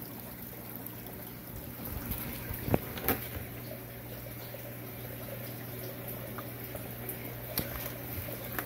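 Aquarium water bubbling and trickling from a stream of air bubbles, over a steady low hum. A couple of short knocks come about three seconds in.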